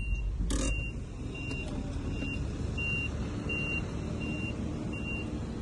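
A vehicle's electronic warning beeper sounds about eight short high beeps, evenly spaced. Under them is the low rumble of the vehicle running.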